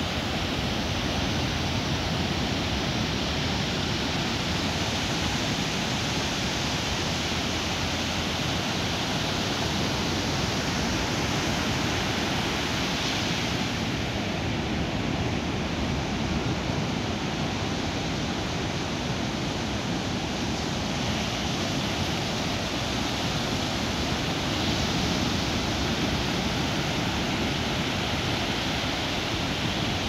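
Ocean surf breaking and waves washing up a sandy beach: a steady rushing hiss that swells slightly now and then.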